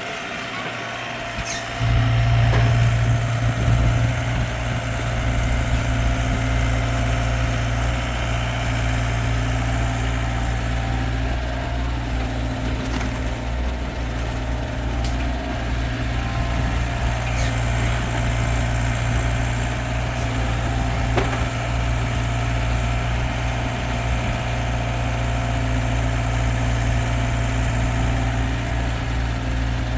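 Heavy diesel engine of earthmoving equipment running steadily with a deep drone, which gets much louder about two seconds in.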